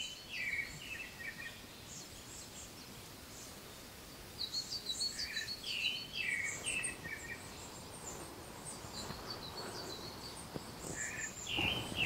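Wild songbirds singing, short chirping phrases that come and go in bursts, over a faint steady outdoor hiss.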